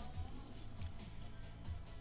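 Quiet background music with a soft low beat.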